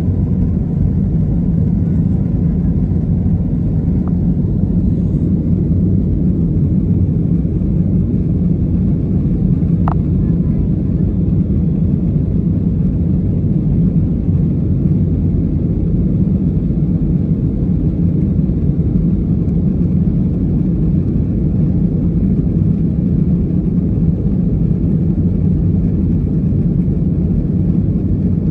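Steady cabin drone of an Airbus A320neo in flight after takeoff, engine and airflow noise heard inside the cabin at a window seat over the wing, deep and even.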